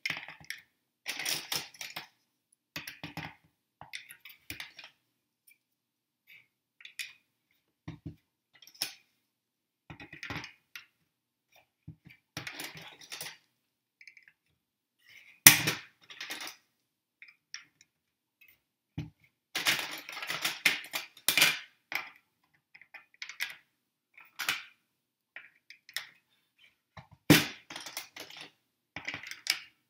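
Small plastic clips clicking and clattering against a clear bowl as they are picked out of it and clipped onto its rim one after another, in irregular clicks with a few sharper snaps.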